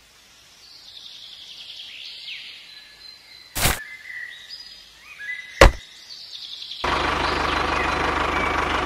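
Faint chirping ambience broken by two sharp clicks, about three and a half and five and a half seconds in. Near the end a steady tractor-engine running sound starts, with a fine, even low rumble.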